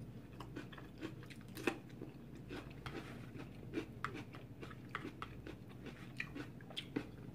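Close-miked chewing of crunchy raw bell-pepper veggie nachos: irregular soft crunches and wet mouth clicks, several a second, a few louder than the rest.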